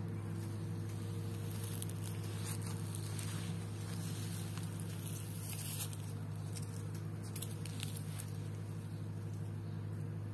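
Light crackling rustles of a cat's paws stepping over dry leaves and fallen petals, in scattered clusters from about two seconds in until about eight seconds in, over a steady low hum.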